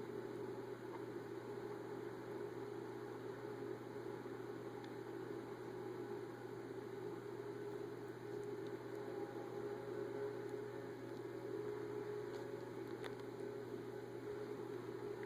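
Steady low hum with hiss, unchanging throughout, and a faint tick or two near the end.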